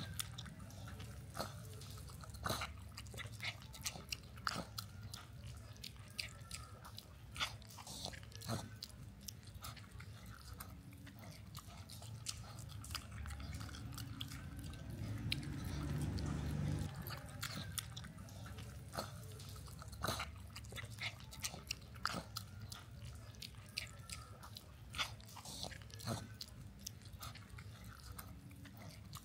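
A piglet and a baby macaque eating at close range: chewing and crunching on fried potato, with many small clicks and smacks. There is a somewhat louder stretch about halfway through.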